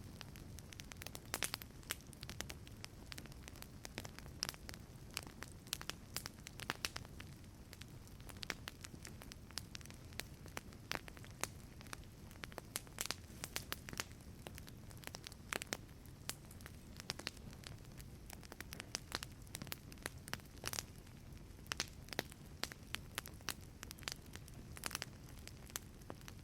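Wood fire crackling in a fireplace: irregular sharp pops and snaps over a soft, steady low rumble of flames.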